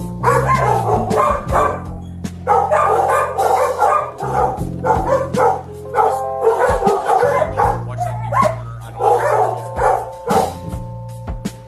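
A dog barking over and over in quick bursts, with background music holding steady low notes underneath.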